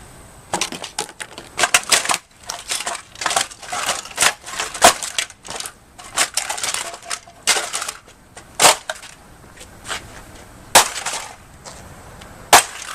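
An axe striking and smashing the plastic housing of a Mr. Coffee K-cup brewer: about ten sharp, irregularly spaced blows, with plastic cracking and crunching between them.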